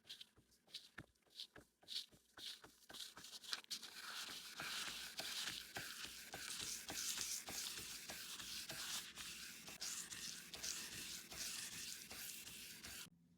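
Sandpaper rubbed by hand over a surface: first short separate scratches, then quick continuous back-and-forth strokes, stopping abruptly near the end.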